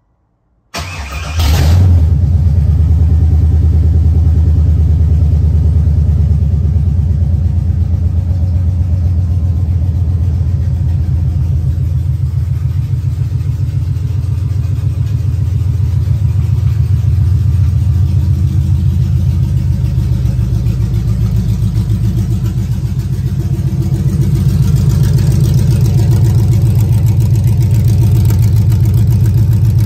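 1996 Chevrolet Impala SS's LT1 5.7-litre V8 with open FLP long-tube headers, no exhaust past the headers, cranking briefly and catching about a second in. It then runs loud and steady at a cold-start idle.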